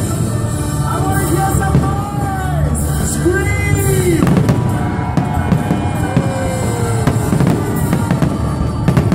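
Music with singing and a drum beat, over the bangs and crackle of an aerial fireworks display.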